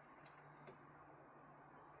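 Near silence: room tone with a steady low hum and a few faint clicks in the first second.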